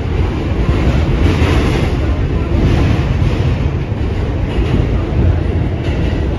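New York City subway train heard from inside the car while running: a loud, steady rumble of wheels on the rails and car noise.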